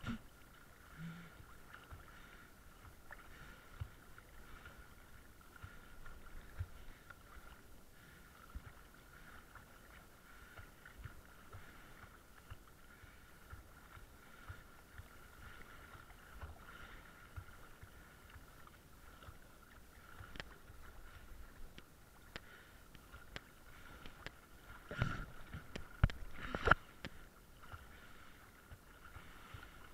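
Faint, muffled sea water moving around a bobbing camera, with a steady faint high whine and scattered small knocks; a few louder knocks come near the end.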